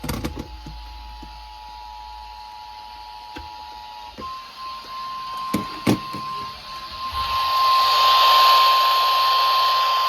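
Emergency alert tones over a radio receiver: a steady two-tone EAS attention signal until about four seconds in, then a single steady warning tone, the NOAA Weather Radio alert tone, which grows louder along with radio hiss from about seven seconds in. A few sharp clicks and knocks sound near the start and around five to six seconds in.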